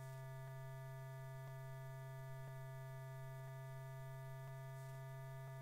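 Steady low electrical hum with faint ticks about once a second.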